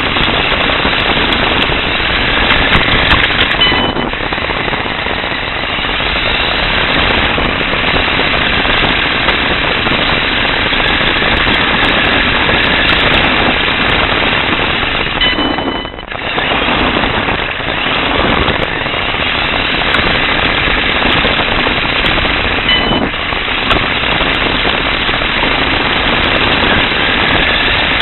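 Radio-controlled car driving over rough pavement, heard through a camera mounted on its own chassis: a loud, dense, continuous rattle of vibration and tyre noise. A brief high whine shows up a few times, and the noise drops briefly about halfway through.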